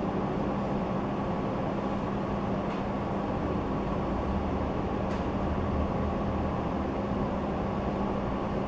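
Steady background hum and room noise with a constant low tone, broken by a couple of faint clicks.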